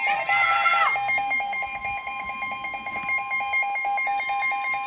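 NOAA Weather Radio warning alarm: a steady tone of about 1050 Hz, the signal that a warning message follows, sounds together with the rapid alarm beeping of a weather-alert receiver. The steady tone drops out about a second before the end.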